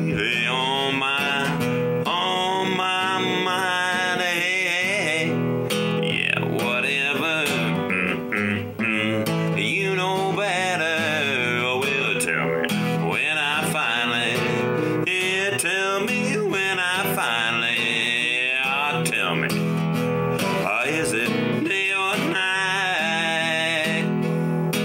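Background music: acoustic guitar with a singing voice.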